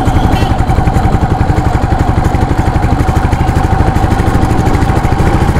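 Motorcycle engine running steadily while riding, with fast even firing pulses and a steady whine above them.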